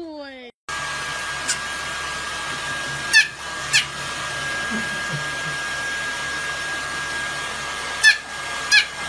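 Hair dryer blowing steadily with a faint high whine, drying a fluffy white puppy's fur. Short high yips cut through it five times, twice close together about three seconds in and twice near the end.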